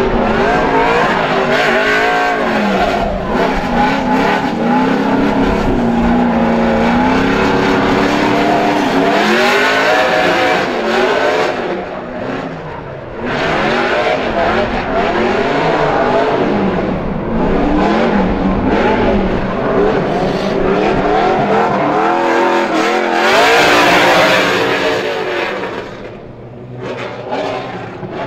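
Ford Mustang V8 drift car's engine revving hard, the revs swinging up and down over and over through the drift, with screeching from the spinning rear tyres.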